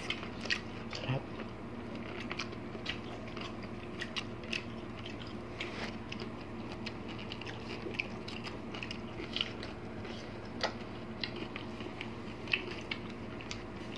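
Close-miked eating: biting into and chewing juicy watermelon, with many short wet smacks and crunches, over a steady low hum.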